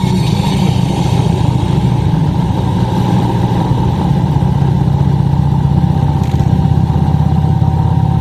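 Touring motorcycle engine running steadily at cruising speed, with wind rush, heard from the rider's seat.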